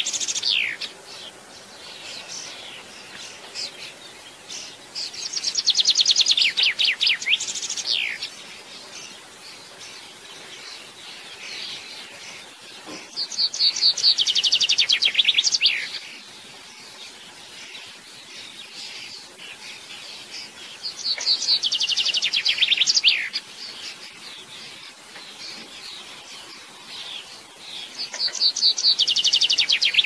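Male common chaffinch singing: four song phrases, each a fast run of notes that falls in pitch and ends in a flourish, coming about every seven seconds, with the tail of another phrase at the start. Softer, fainter notes fill the gaps between phrases.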